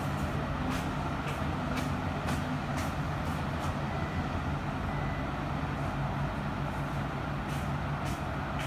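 A steady low mechanical hum of running machinery, with faint, irregular light ticks scattered through it.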